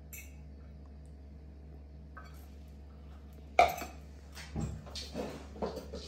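Tableware clinking during a meal, from a stainless steel bowl and a plate handled with a fork and fingers. One sharp clink comes about three and a half seconds in, then a few softer taps and clinks.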